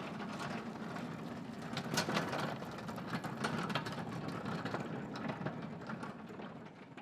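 Manual pallet jack rolling across a concrete floor under load, its wheels rumbling with scattered rattles and clicks; it fades near the end.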